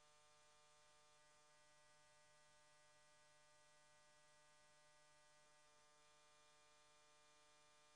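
Near silence: a faint, steady electrical hum and hiss with no other sound.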